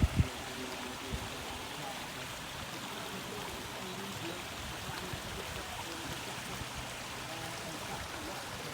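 Steady wash of flooded lake water over a bulkhead, an even rushing noise, with a couple of low thumps at the very start.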